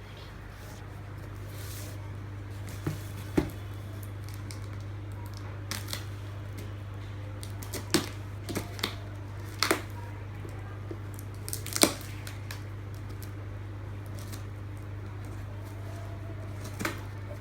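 Packaging of a printer toner cartridge box being handled and opened: a few sharp clicks and crackles at irregular intervals, over a steady low hum.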